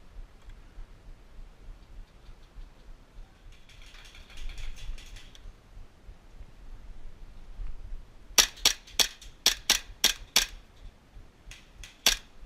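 Airsoft guns firing: a faint rapid burst from farther off, then a string of about eight sharp, loud shots at roughly four a second, and two or three more near the end.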